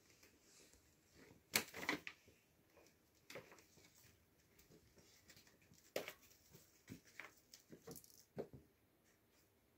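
Faint, scattered rustles and soft taps of cats shifting on a fabric cat bed as a mother cat grips and grooms her kicking kitten, the loudest rustle about one and a half seconds in.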